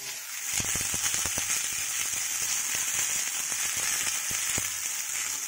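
Cauliflower florets sizzling and crackling in hot oil in a kadai as they are stirred with a metal spatula. The crackling sets in about half a second in.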